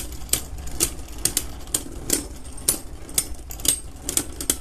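Two Beyblade Burst tops, Guilty Longinus and Brave Valkyrie, spinning in a plastic stadium and clacking against each other, with sharp irregular hits about three or four times a second.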